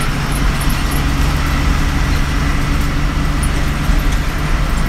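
Bus engine running steadily while the bus is under way, with road noise and a few faint ticks, heard from inside the cabin.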